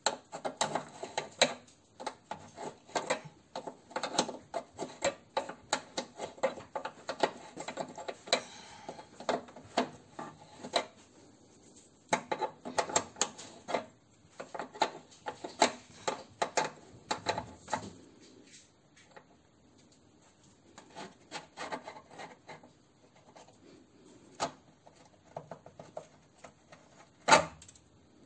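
Hand tools working on a car's front brake hose fitting: runs of rapid clicking and scraping in quick bursts for most of the first two-thirds, then a few scattered knocks and one sharp clack near the end.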